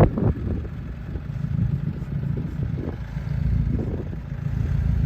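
A motor running steadily with a low rumble, with scattered knocks and rattles over it.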